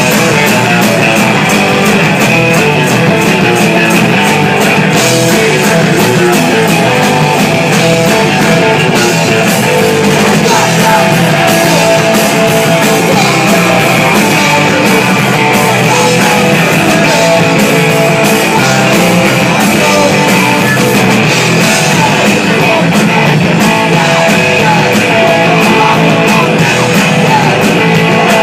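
Rock band playing live and loud, with electric guitars, drums and a singer, recorded from within the crowd in a small club.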